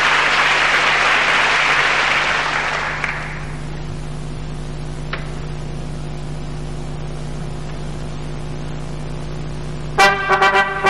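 Audience applause fading away over the first three seconds, leaving a steady low hum. Then, near the end, orchestral brass music starts with loud, sharp chords.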